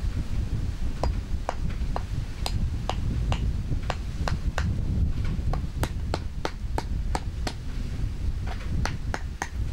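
Claw hammer tapping a small metal net weight against a wooden block: a series of light, sharp knocks about two a second, with a short pause near the end.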